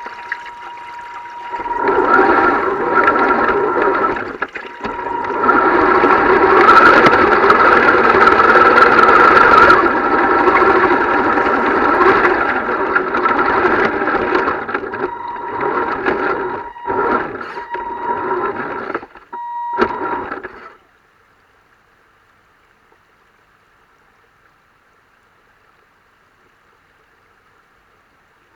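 Rushing water with a steady high whine running through it. It stops abruptly about two-thirds of the way through, leaving only a faint hum.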